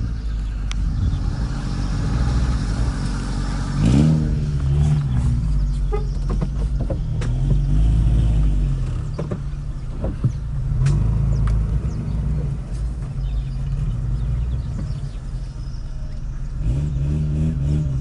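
Toyota FJ Cruiser's V6 engine running under load at low speed, heard from inside the cabin, revving up about four seconds in and again near the end. Scattered knocks and rattles from the vehicle jolting over the rough track.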